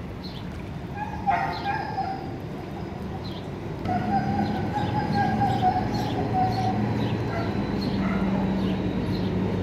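A husky-type dog whining: a short cry about a second in, then a long, drawn-out high whine lasting about three seconds.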